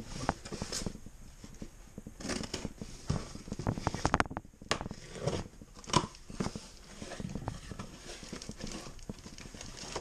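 Small cardboard boxes being handled and their tape slit open with a knife: irregular scrapes, taps and crinkling, with a sharper snap about six seconds in.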